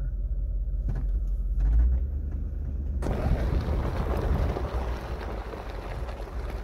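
A steady low engine rumble. About three seconds in it gives way suddenly to the louder rushing noise of a vehicle driving down a rough dirt track.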